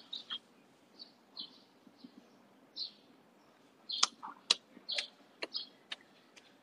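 A bird chirping in short, scattered high notes, with a run of about six sharp clicks between roughly four and six and a half seconds in, the loudest of them near four and a half seconds.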